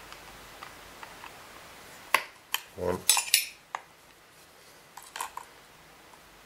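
Metal Torx bit holder clicking and clinking against a Kirby vacuum wheel as it pushes pieces out of the wheel. There is a cluster of sharp clicks about two to three and a half seconds in, and a few more about five seconds in.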